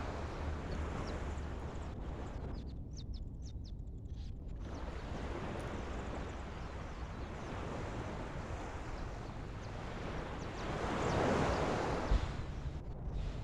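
Wind buffeting the microphone over waves washing along a rocky shoreline, a steady rush that swells about eleven seconds in, with one sharp knock just after.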